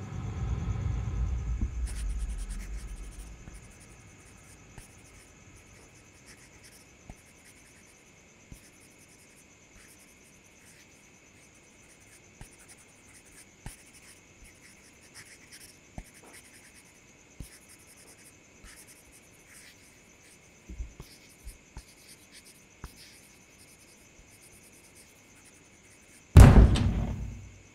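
A low rumble fades out over the first few seconds. Then crickets chirp steadily under scattered soft clicks and taps. A loud, sudden bang comes about a second before the end.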